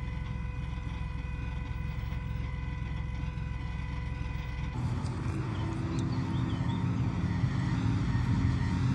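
Panhard Sagaie six-wheeled armoured car's engine. It first runs steadily with an even hum, then about five seconds in a louder running engine takes over and grows as the vehicle drives closer.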